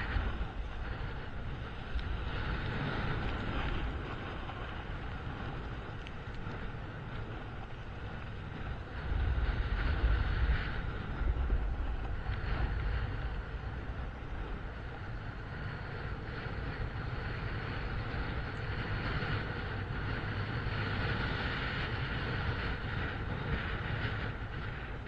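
Wind buffeting the microphone during a downhill run on snow, a steady low rumble that swells about nine seconds in, over a continuous hiss of edges sliding on packed snow.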